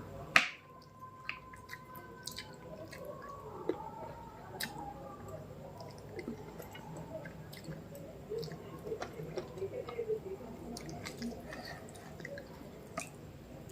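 Close-miked chewing of mutton biryani, with small wet mouth clicks and smacks throughout and one sharp click about half a second in.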